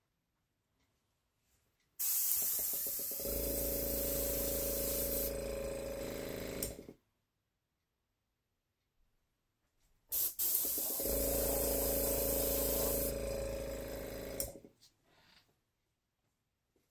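Airbrush blowing air in two bursts of about five seconds each, a loud hiss with the air compressor's motor humming underneath, the motor joining about a second after each burst begins. Each burst cuts off, with about three seconds of near silence between.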